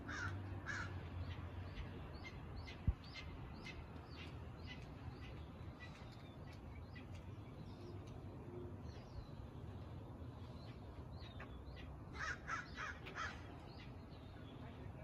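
Crows cawing in mobbing calls at hawks overhead: a few harsh caws in the first second, then a burst of about four caws about twelve seconds in. Short high chirps are scattered in between, and there is a single sharp click about three seconds in.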